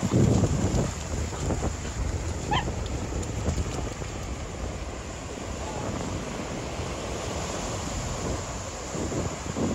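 Surf washing in with wind buffeting the microphone, louder in the first second. A dog gives one short, high yelp about two and a half seconds in.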